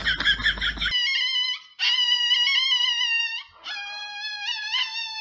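Small toy poodle crying out in long, high-pitched, wavering howls, broken by short pauses, in protest as its nails are clipped. Before it, a short rapid warbling call cuts off about a second in.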